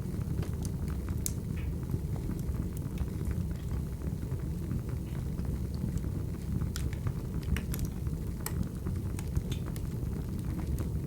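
Wood fire crackling: a steady low rumble of burning logs with scattered sharp pops and snaps.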